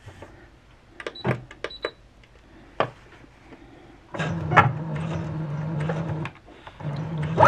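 Brother XR9550 computerized sewing machine sewing a straight stitch: after a few light clicks, the motor and needle run steadily for about two seconds from about four seconds in, pause briefly, and start again near the end.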